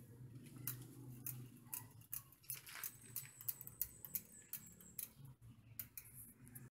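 Fat bike's rear freewheel hub ticking as the rear wheel turns slowly, a few ticks a second, over a faint low hum; it cuts off suddenly near the end.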